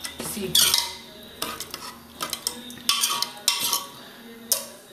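Steel ladle stirring watery chickpea curry in an aluminium pressure cooker, clinking and scraping against the pot several times.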